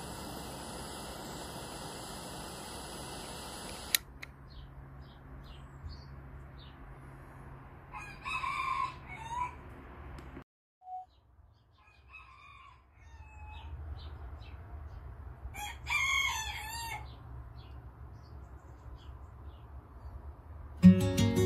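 A rooster crowing twice, each crow about a second and a half long, with small birds chirping faintly between. A steady hiss fills the first few seconds and cuts off with a click.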